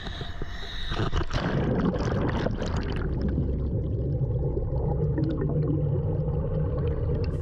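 Water splashing for a second or two, then muffled underwater sound: a steady low rumble with faint ticks and bubbling, the high end mostly gone.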